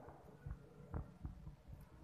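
Faint handling noises of hands pressing sliced ginger and lemongrass into raw fish pieces in a glass bowl: a few soft, dull knocks, the clearest about a second in.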